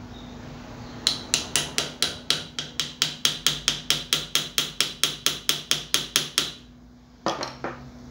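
Small hammer tapping a hand tool held against a steel wire clamped in a bench vise: a steady run of sharp metal taps, about four a second, then a quick group of three near the end.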